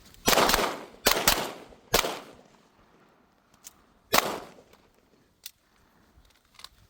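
Gunshots: several shots in quick succession in the first two seconds, then one more about four seconds in, each with a short fading echo. A few faint clicks follow.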